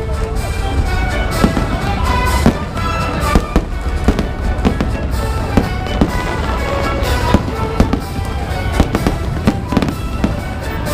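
Fireworks bursting in quick, irregular bangs, several a second at times, with music playing throughout.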